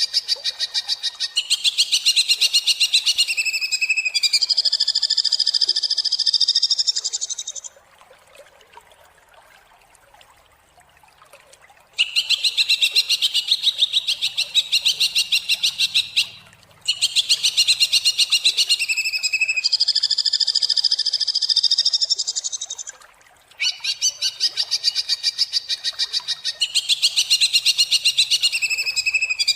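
Green leafbird (cucak ijo) singing harsh, rasping song: fast trains of repeated high notes in bouts of several seconds, broken by a pause of about four seconds partway through.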